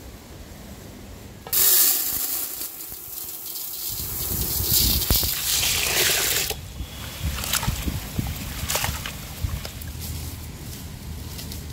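Water poured into a cooking pot in a sudden gush that starts about a second and a half in and runs for about five seconds. After it, a quieter trickle with a few small knocks.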